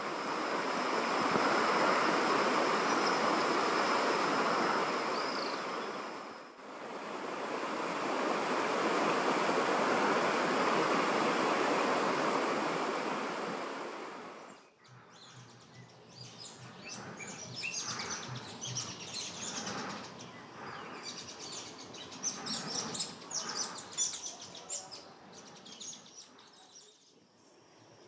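Stream water rushing over rocks, a steady loud rush, dipping briefly partway through. About halfway in it gives way to quieter background with many short, high bird chirps.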